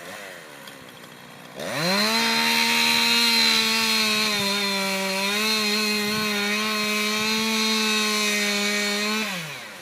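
Chainsaw engine revved to high speed about a second and a half in, held steady for about seven seconds, then let back down near the end.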